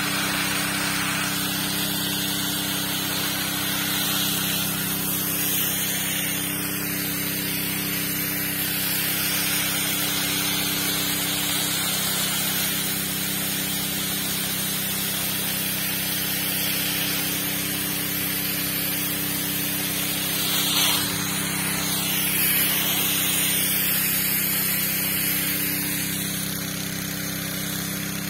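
A strong jet of water hissing out of a hose nozzle and spattering onto dry, tilled soil, over the steady hum of a motor pump feeding the hose from a pond.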